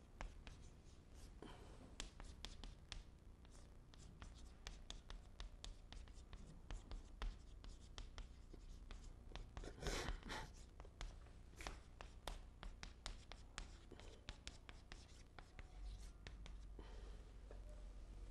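Chalk writing on a chalkboard: faint, rapid taps and short scratches as characters are written, with one longer scrape about ten seconds in.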